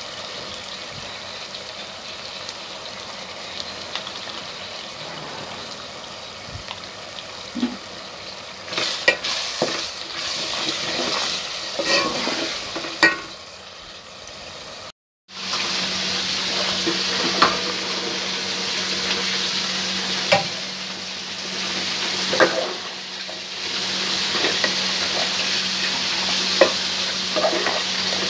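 Onion-tomato masala sizzling in hot oil in a metal cooker pot, with a spoon scraping and clicking against the pot as it is stirred. After a short break about halfway through, the sizzling is louder and the scrapes come more often.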